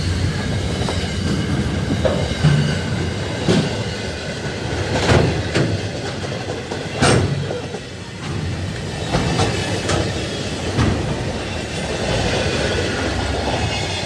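Freight train wagons rolling past with a steady low rumble, broken by irregular clanks and clicks as the wheels run over rail joints.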